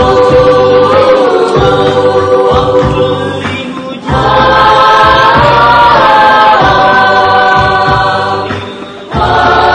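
A church choir of young men and women singing a sholawat, an Islamic devotional song, together in long held notes. One phrase ends about four seconds in and the next starts straight away; another begins near the end.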